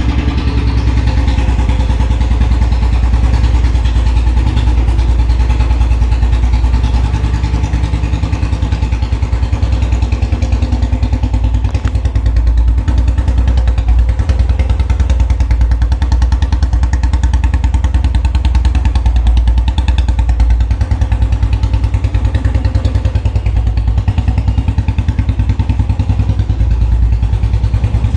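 Royal Enfield Bullet BS6's single-cylinder engine idling steadily through a long Punjab-style aftermarket silencer, cold after standing unused for a month.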